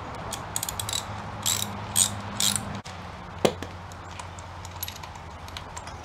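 Ratchet wrench clicking in short bursts as it loosens a motorcycle spark plug, with one sharper metallic click about three and a half seconds in.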